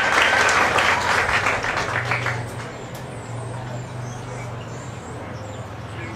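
Audience applause from the stands, dying away over the first two and a half seconds, leaving a low steady hum of background noise.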